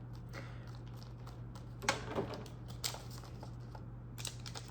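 Pokémon trading cards being handled: scattered light clicks and taps, with two sharper ones about two and three seconds in, over a steady low hum.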